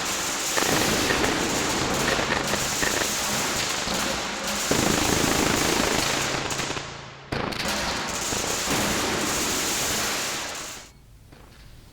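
Fireworks crackling and bursting in a rapid, dense barrage, dropping out briefly about seven seconds in and then cutting off suddenly near the end.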